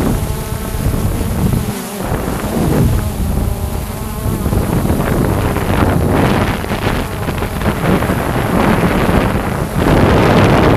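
Quadcopter drone's propellers buzzing steadily, mixed with wind noise on the microphone, louder near the end.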